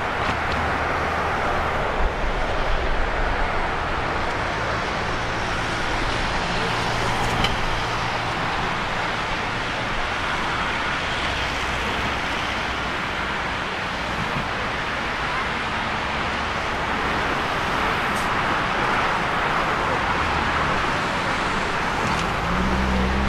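Boeing 767-300F freighter's twin turbofan engines running at taxi power, a steady, even rushing noise.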